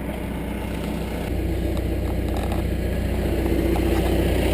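An engine running steadily, growing a little louder about a second in, then cutting off abruptly.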